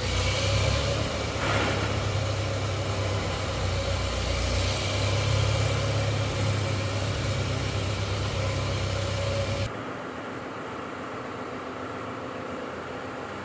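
A vehicle engine running steadily with a low hum. About ten seconds in it cuts off abruptly to a quieter steady hum.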